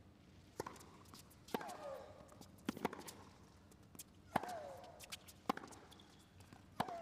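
Tennis rally on a hard court: sharp racket-on-ball hits and ball bounces, about one every second, with a player's short shriek falling in pitch on three of her shots.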